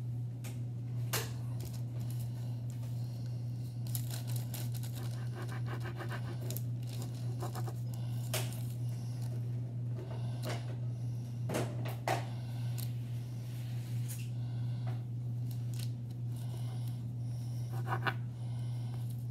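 Table knife scraping and tapping on paper laid over a counter as it cuts through a soft, crumbly lump, in scattered short strokes with a quick run of them early on. A steady low hum sits under it.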